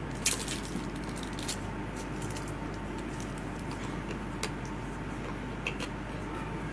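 Steady low hum and hiss of a recording's background noise, with a few scattered faint clicks. The sharpest click comes just after the start.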